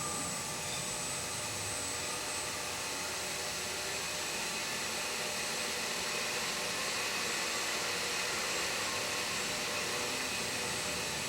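Milling machine spindle running steadily under its AC frequency inverter drive: an even motor hum and hiss with faint steady whine tones.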